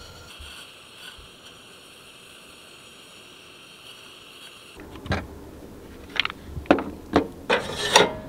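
Metal and glass clinks and knocks as a cooking pot's glass lid is lifted off and set down on a camp stove's grate: about half a dozen sharp knocks in the last three seconds, the loudest near the end, after a faint steady hiss.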